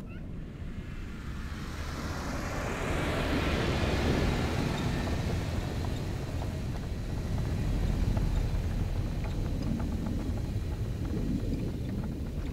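Jeep Wrangler driving past on a snow-covered road. Tyre hiss and engine rumble swell as it passes close, and a low rumble carries on as it drives away.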